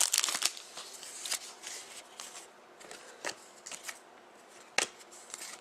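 Trading cards being handled and slid against one another: papery rustling, loudest in the first half second, then softer rustles and a few short, sharp flicks, one of them about five seconds in.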